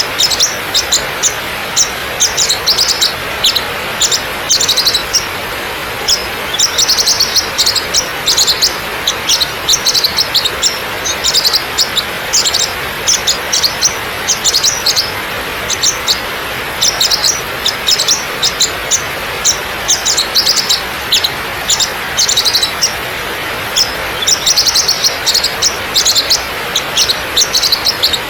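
Waterfall water rushing steadily over rock, with birds chirping in quick clusters of short high calls throughout.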